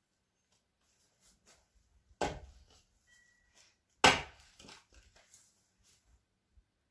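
Axe blows splitting a chunk of lightered, the resinous heartwood of a pine: two sharp chops about two seconds apart, the second the louder, each followed by a few lighter knocks.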